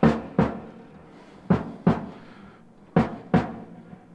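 Drum kit struck in a slow, steady pattern: pairs of hits about half a second apart, a pair every second and a half, each ringing out briefly.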